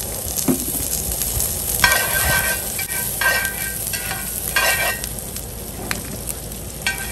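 Chopped onion and garlic sizzling in hot bacon grease in a cast iron pan, with a few scrapes of a metal spoon stirring across the pan bottom.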